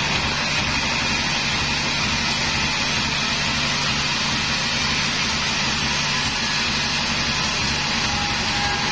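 Band sawmill running steadily, its band-saw blade cutting lengthwise through a timber slab over a constant low drone from the machine's drive.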